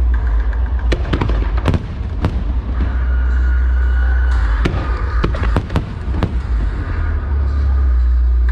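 Aerial fireworks bursting in a series of sharp cracks, several close together in the second half, over a constant deep rumble.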